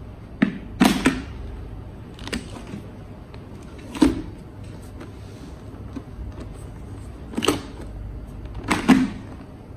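Sharp plastic clicks and clacks from an LS2 FF900 Valiant II modular helmet as its visor and flip-back chin bar are moved and snapped into place. The clicks are spread out, some in quick pairs.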